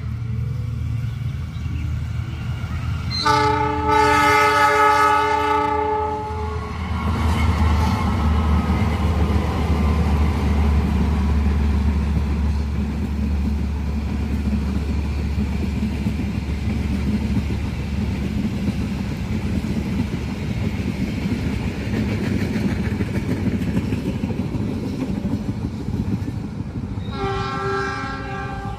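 A train horn blows one long blast of about three seconds, then the train rumbles past with its wheels clattering on the rails. The horn blows again near the end.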